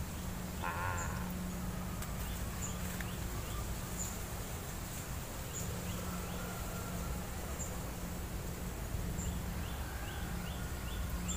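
Birds and insects calling: a harsh call about a second in, runs of quick falling bird chirps early and again near the end, and a high insect chirp repeating about once a second.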